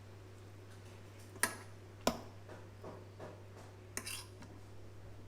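Kitchen utensils and dishes being handled: two sharp clicks, the first a little over a second in and the second about two seconds in, then a few lighter taps and a short rustle about four seconds in, over a low steady hum.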